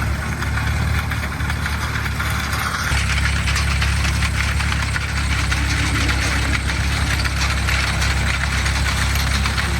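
Engine running steadily with a low, even rumble, a little louder from about three seconds in.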